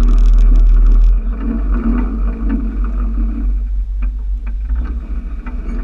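Low rumble of a dolphin-cruise boat on the water, loudest for about the first second and then easing off.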